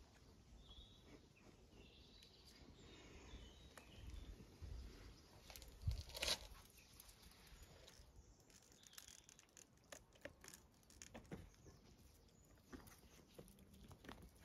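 Near silence with faint bird chirps, a few soft scuffs and clicks, and one brief louder knock about six seconds in.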